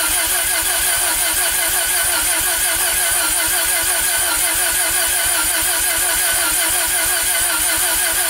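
Starter cranking a freshly built bridgeported Mazda 13B-REW twin-rotor engine on a cold first start, a steady, rhythmically pulsing whirr without the engine catching; the owner suspects the engine is flooded.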